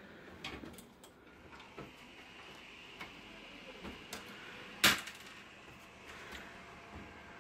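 A newly built desktop PC being switched on: light handling clicks, one sharp click about five seconds in, and a faint steady whir of its cooling fans running from about two seconds in.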